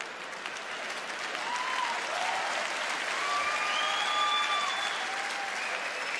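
Large theatre audience applauding after a punchline. From about a second and a half in, a few held voices whoop over the clapping.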